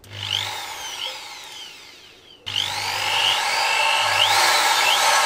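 DCA 13 mm, 500 W corded impact drill running with no load. It starts suddenly and winds down over about two seconds as the trigger is let go, then is switched on again about halfway through and runs steadily.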